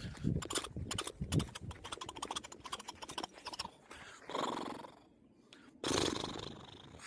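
A man imitating a trotting horse: a quick, even run of clip-clop clicks for about three and a half seconds, then two breathy horse-like blows, the second about six seconds in.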